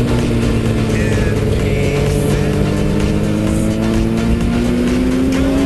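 Sport motorcycle engine running at highway speed under wind rush. Its pitch dips a little, then climbs slowly as it accelerates.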